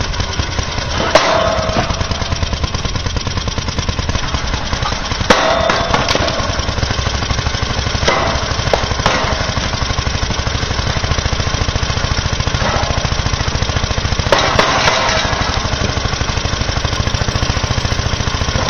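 Heavy machinery running with a fast, steady pulsing, broken by a few sharp knocks or clanks.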